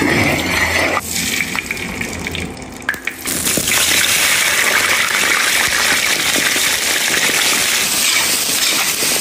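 Peeled potato chunks tipped into hot oil in a wok set off a loud, steady sizzle about three seconds in. Before that, a metal spatula clinks and scrapes against the wok.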